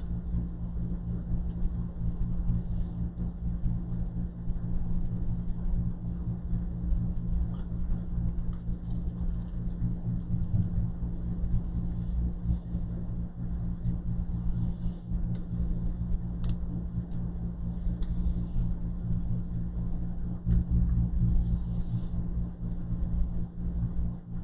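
Steady low mechanical hum with a low rumble, and a few faint clicks over it.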